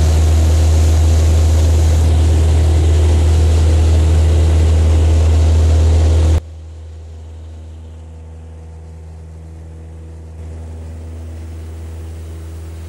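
Cessna 172's piston engine and propeller at takeoff power during the takeoff roll, heard inside the cabin as a loud steady drone. About six seconds in it drops abruptly to a much quieter level and carries on steadily.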